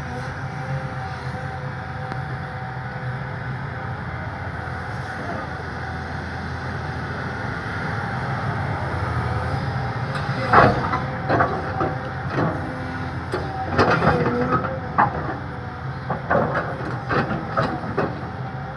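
Cat excavator's diesel engine running steadily. From about halfway, a run of sharp clanks and knocks while the machine digs soil.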